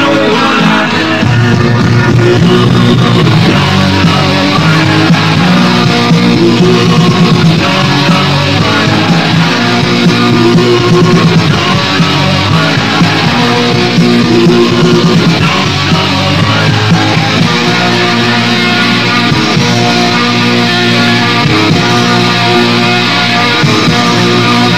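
Rock band playing loud and steady, with electric guitar to the fore.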